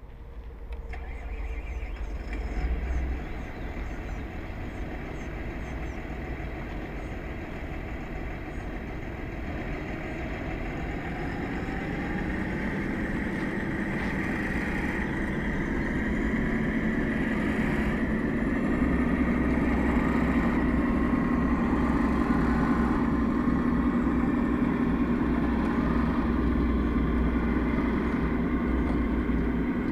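Self-built 1:8 scale John Deere 9560R hydraulic RC tractor running, its machine whine growing louder as it approaches, with a tone that glides upward about ten seconds in.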